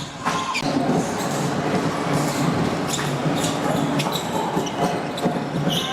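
Clothing rubbing against a basketball player's body-worn microphone makes a steady rustle during play, with a few short sneaker squeaks and taps from the court.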